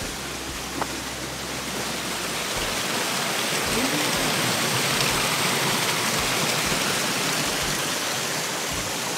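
Small forest waterfall cascading over rocks into a stream: a steady rush of water that grows a little louder about two and a half seconds in.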